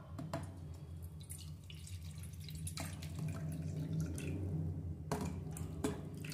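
Water dripping and splashing in the stainless steel inner pot of an electric cooking pot, with scattered small drips and a couple of louder splashes near the end, over a steady low hum.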